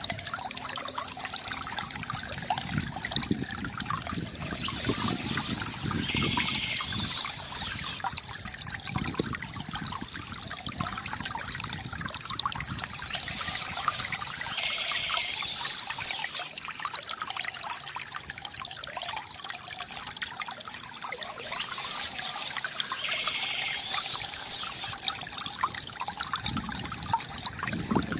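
Small stream trickling and splashing steadily, with a bird's song phrase coming back three times, about every eight or nine seconds.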